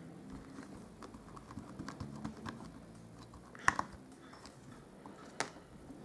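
Light taps and rubbing as clear stamps are pressed onto paper in a Stamparatus stamping platform, followed by sharp clicks of the tool being handled: a quick double click a little past halfway and a single click near the end.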